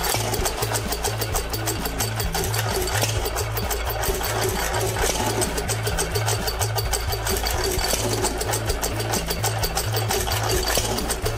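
Buzacott hit-and-miss stationary engine running, with a fast, even beat of exhaust pulses and mechanical clatter.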